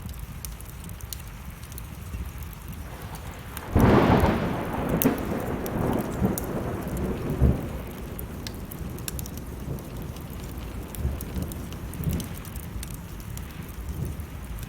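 Wood fire crackling with steady rain, and a thunderclap about four seconds in that rolls on and fades over several seconds.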